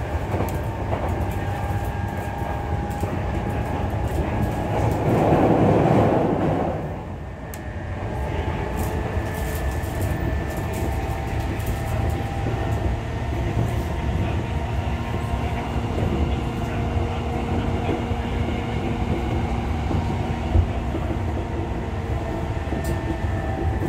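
On-board running sound of a JR E233-6000 series motor car (MoHa E233-6001): a steady rumble of wheels on rail with a thin whine from the traction motors. About five seconds in, the noise swells loudly for two seconds, then drops away. Two sharp knocks come near the end.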